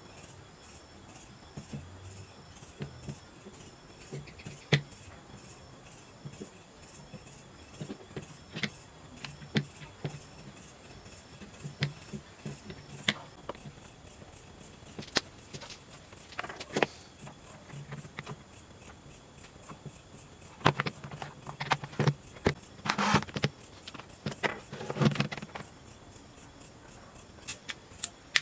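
Scattered, irregular clicks and knocks of parts and tools being handled, busier near the end, some with a short low hum under them.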